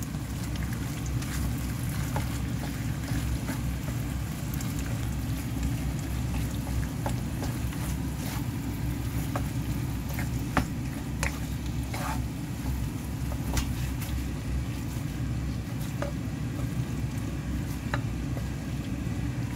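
A wooden spatula stirring and scraping saucy stir-fried food in a nonstick frying pan, with scattered light clicks and scrapes, over a steady low rumble.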